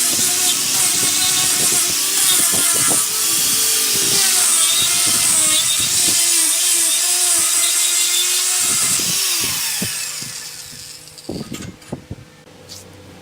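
Power tool cutting wood, with a wavering squeal over a hissing cutting noise. It fades out about ten seconds in, followed by a few sharp knocks.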